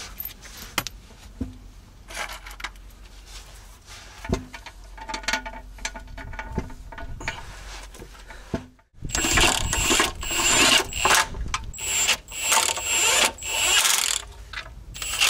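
Faint clicks and knocks of oil-pan bolts being started by hand. From about nine seconds in, a cordless impact wrench runs in repeated short bursts with a high whine, driving the oil pan bolts home on a MAN V8 engine.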